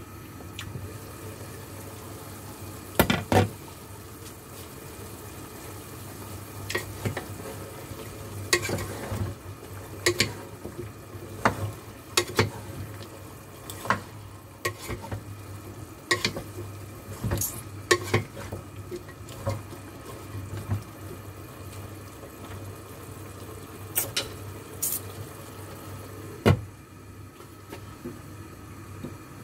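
Wooden spatula stirring vegetables and chicken in a granite-coated pot, with irregular sharp clacks and knocks of the spatula and glass lid against the pot: the lid comes off about three seconds in and goes back on near the end. A steady low hum runs underneath.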